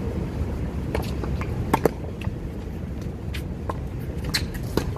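Tennis ball struck by racquets and bouncing on a hard court during a rally: a series of sharp pops, the loudest a close pair about two seconds in. A steady low rumble of wind on the microphone runs underneath.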